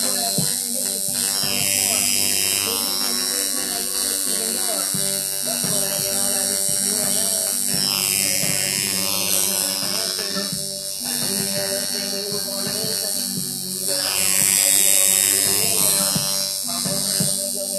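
Coil tattoo machine buzzing steadily while its needle works on skin. Music plays faintly underneath.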